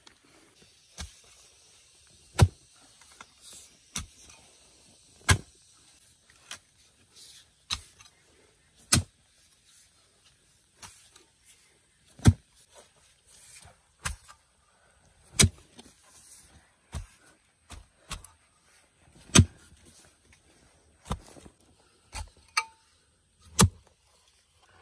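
A series of hard knocks or blows, the heaviest coming about every three to four seconds, with lighter knocks in between.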